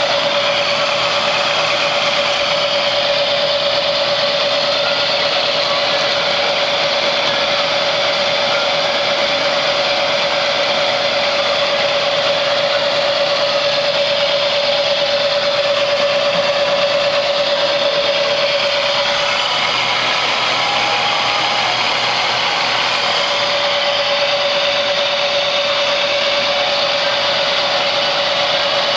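Bridgeport Acu-Rite CNC milling machine running under power: a steady mechanical whine with one strong held tone. The tone drops out for a few seconds about twenty seconds in, then comes back.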